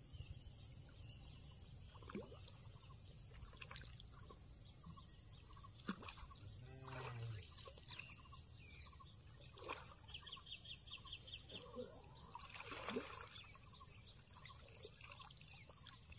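Faint pond-side ambience: a steady high insect buzz, with several short splashes as a hooked mirror carp is played in shallow water. There is a brief low call about seven seconds in.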